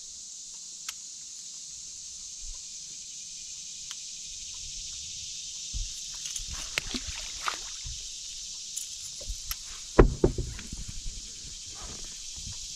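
A steady high-pitched drone, with clicks and rattles from fishing line and tackle being handled on a bass boat deck from about six seconds in. About ten seconds in comes one heavy thump with a brief sloshing after-sound.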